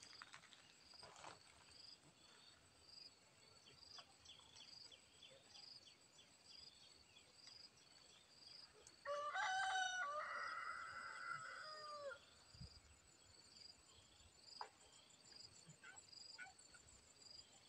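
A rooster crows once, a single long call of about three seconds roughly nine seconds in, the loudest sound here. Underneath, a faint high chirp repeats steadily, about once or twice a second.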